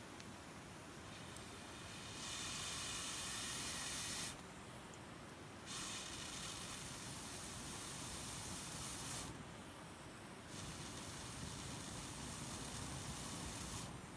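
Campfire of damp firewood with three long hissing pushes of air, each about three seconds, starting about two, six and ten and a half seconds in, over a low steady rustle of the fire. The wood is damp and slow to catch.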